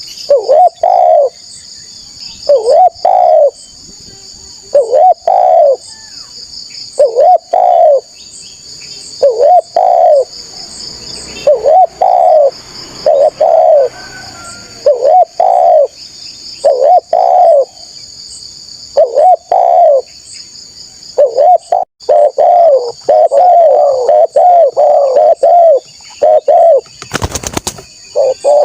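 Spotted dove cooing loudly and repeatedly, a short phrase of coos about every two seconds, speeding up into a rapid run of coos near the end. A steady high-pitched pulsing buzz runs behind it, and a brief burst of crackling noise cuts in near the end.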